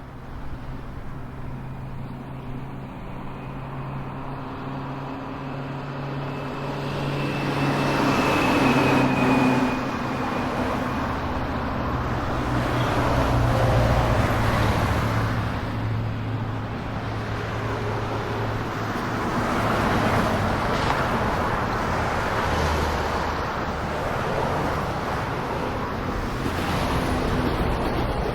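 A motor vehicle on the move: a steady engine hum under road and wind noise. It gets louder about a quarter of the way in, then swells and eases a few times.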